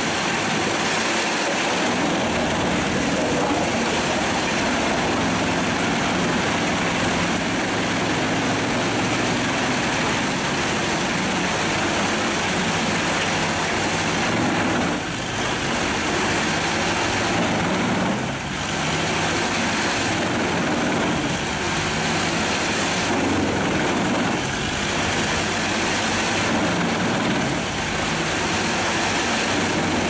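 Truck-mounted Pezzolato PTH 1200/820 drum wood chipper, driven by the truck's MAN 480 hp engine, running under load while chipping logs. A steady engine note lies under the dense noise of wood being chipped and chips blown out of the spout, with the noise dipping briefly twice about halfway through.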